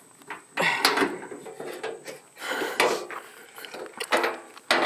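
A handful of separate metallic clunks and rattles as parts around a ride-on mower's steering column and gear shifter are handled and worked by hand, with the engine not running.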